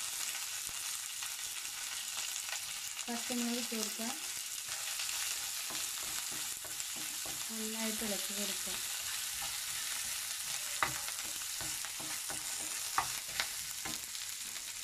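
Mustard seeds, chillies, curry leaves and ginger frying in hot oil in a nonstick pan, sizzling steadily while a wooden spatula stirs them. A few light clicks near the end.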